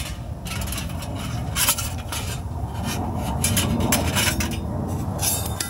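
Several short metallic clinks and scrapes on a grill grate over a steady low rumble.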